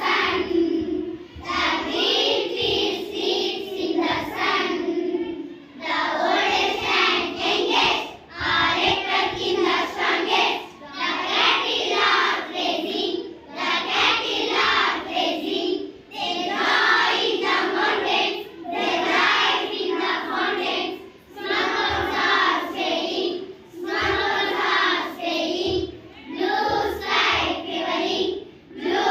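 A class of young girls singing an English action poem together in unison, in phrases of about two and a half seconds with short breaks between.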